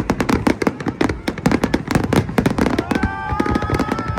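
Aerial fireworks bursting in a rapid, dense run of crackles and pops, with several steady high tones joining in about three seconds in.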